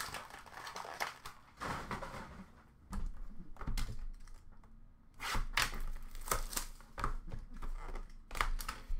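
Upper Deck Clear Cut hockey card boxes being handled and opened by hand: a run of short cardboard knocks, clicks and rustles of packaging, with a quieter stretch in the middle.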